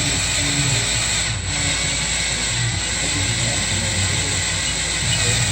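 Drill running steadily with a continuous hiss as a left-handed drill bit bores into an EGR bolt on a diesel engine.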